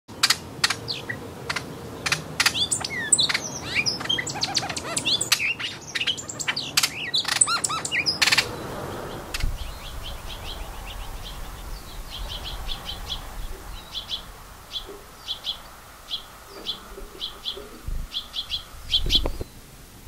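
Wild songbirds chirping and calling: a dense tangle of chirps and sharp clicks for about the first eight seconds, then, after a break, a run of short chirps repeated over and over.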